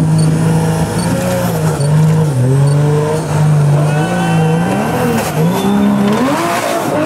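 Nissan Patrol Y61 4x4's engine working under load as it crawls up a steep rocky climb. Its revs rise and fall with the throttle, then swing up and down quickly in the last couple of seconds.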